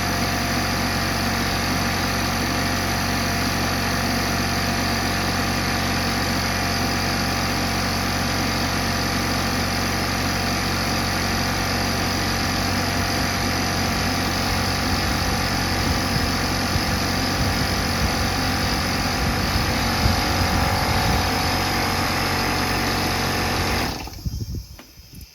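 A motor or engine running steadily with a constant hum, then shutting off abruptly near the end.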